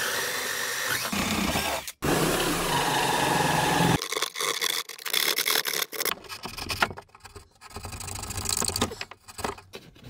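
Cordless drill with a twist bit running steadily as it bores into a wood panel, with a brief break about two seconds in. From about four seconds on, the drill stops and irregular scraping and cutting strokes follow as the hole is worked out by hand.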